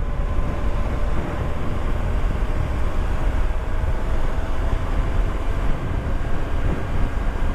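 Motorcycle running at a steady cruising pace, its engine a faint steady tone under heavy low wind rush on the camera microphone.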